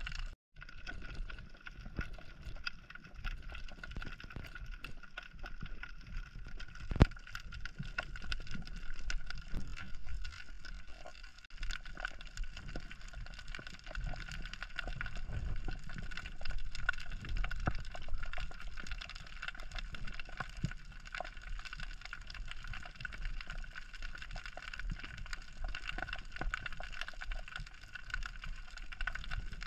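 Underwater sound picked up through an action camera's waterproof housing: a low rumble of water moving past, scattered crackling clicks with one sharp click about seven seconds in, and a faint steady whine beneath.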